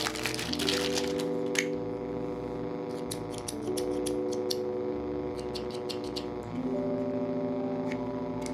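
Small scissors clicking as their blades are opened and closed, in a run of quick clicks, over background music of held chords that change every few seconds.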